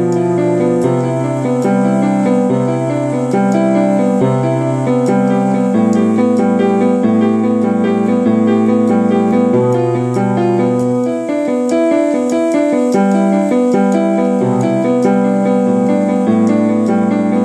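Piano music: slow chords over held bass notes that change every second or two.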